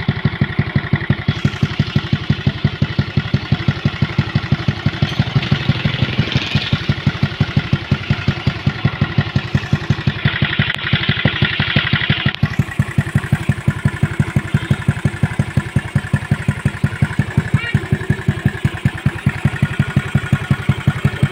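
Yamaha Mio scooter's single-cylinder four-stroke engine idling through a new Pitsbike aftermarket chicken-pipe exhaust, a steady, even pulsing exhaust note. The exhaust note gets a little brighter and louder about six seconds in and again around ten to twelve seconds.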